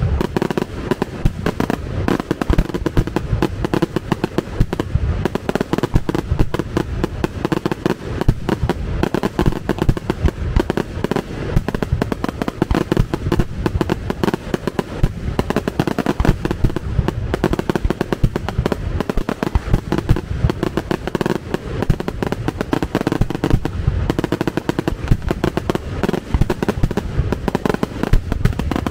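Fireworks display: a dense, unbroken barrage of bangs, many every second.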